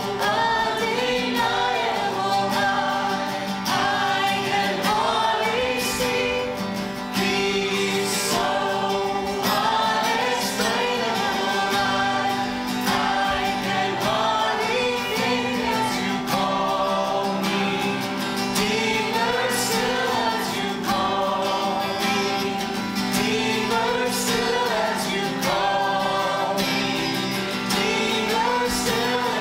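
A congregation singing a worship song together, accompanied by strummed acoustic guitar.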